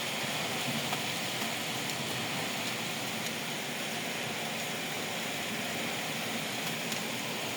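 Steady rain falling, a constant even hiss of a downpour.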